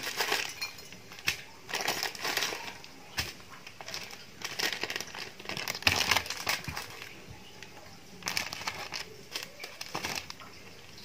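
Plastic instant-noodle packet and small seasoning sachets crinkling and rustling in the hands as they are torn open, in separate bursts with a few sharp clicks.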